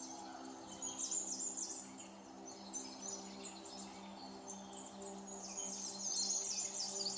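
Small birds chirping and twittering in many quick, downward-sweeping notes, over a soft, steady low hum of held tones.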